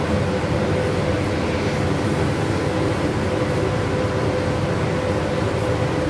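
Electric fan motor on a homemade foam-box air cooler running steadily, a constant whir of air with a steady hum.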